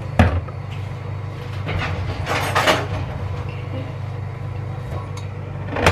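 Steady low electric hum of a running kitchen appliance, with a sharp click just after the start, a short rustling noise about two and a half seconds in, and another click near the end.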